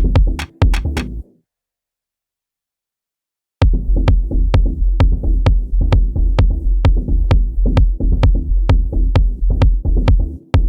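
Electronic drum-machine beat from Native Instruments Maschine 2 digital drum kits: a steady pattern of kicks and percussive hits that stops dead about a second in, leaves two seconds of silence, then comes straight back in.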